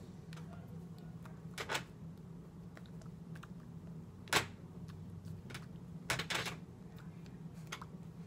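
Hands tapping and slapping together in quick gestures: a few short sharp taps, the loudest about four seconds in and a close pair a little after six seconds, over a steady low hum.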